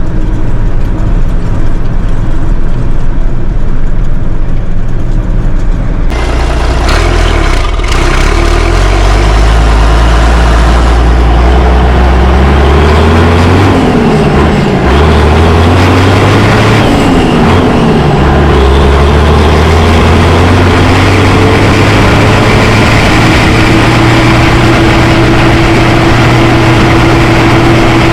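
Fiatagri tractor's turbo diesel engine running on the road, its revs dipping and rising several times midway, then settling to a steady drone. The sound turns brighter about six seconds in.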